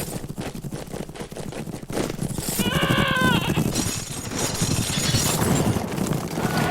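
Battle sound effects: a dense clatter of many quick impacts, with a pitched cry about two and a half seconds in that falls in pitch at its end.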